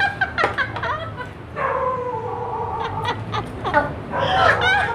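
Short yelping cries, then a long drawn-out wail of about two seconds that falls slightly in pitch, then more short cries near the end.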